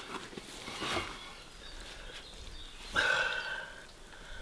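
An animal call: one drawn-out, pitched call lasting just under a second about three seconds in, followed by a fainter short note near the end, over a brief rustle about a second in.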